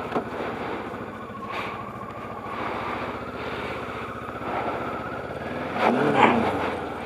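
Kawasaki Ninja 650's parallel-twin engine running steadily as the bike rolls slowly over snow and ice. Its pitch briefly rises and falls with a louder swell near the end.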